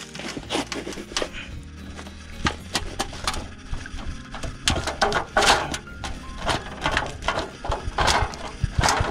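Background music over irregular metal clicks and knocks of hand tools working at a tight hydraulic return filter that will not come loose; the knocks get busier and louder about five seconds in.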